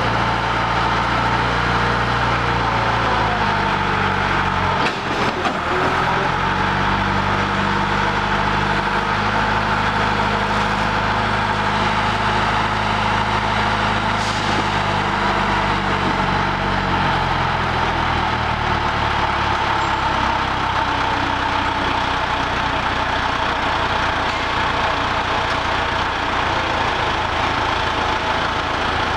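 Caterpillar 416 backhoe loader's diesel engine running steadily as the machine is driven slowly, its note shifting a little past halfway.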